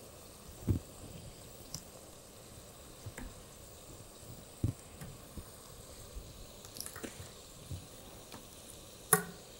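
Chef's knife cutting a horse mackerel (suro) fillet on a plastic cutting board: faint, scattered soft taps and knocks of the blade and fish against the board, with one sharper knock near the end.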